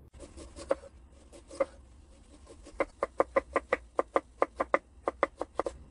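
Kitchen knife chopping ginger on a wooden cutting board. A couple of single cuts come first, then from about three seconds in a quick, even run of chops, about five a second.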